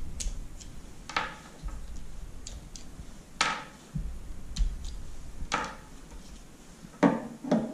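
Small plastic clicks and knocks from a Dosatron D9 dosing pump's lower valves being turned a quarter turn out of the plastic valve holder, pulled free and set down on a wooden table. About six separate clicks, spread out, with a couple of close ones near the end.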